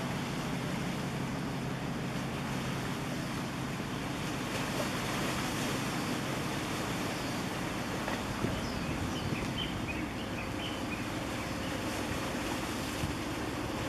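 Steady wash of wind and harbour water with a low engine hum that stops about halfway through. A few faint high chirps come near the end.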